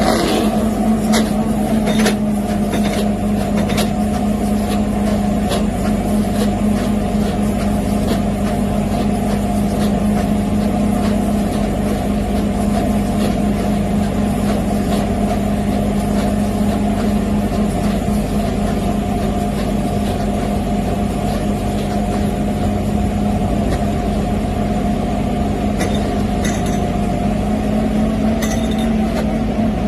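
Komsilaj KM 500 corn-silage baling machine, driven off a tractor's PTO, running steadily with a continuous mechanical drone and hum. A few sharp clicks come in the first couple of seconds.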